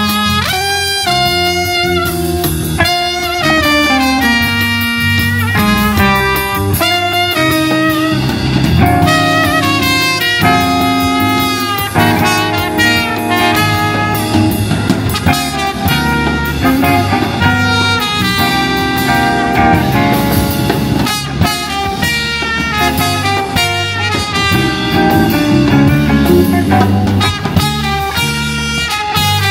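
Jazz band playing, with trumpet and saxophone carrying the melody over a drum kit and bass.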